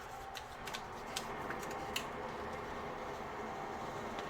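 A handful of small, sharp paper clicks and ticks from stickers being peeled off and moved around on a planner page, over a steady low room hum.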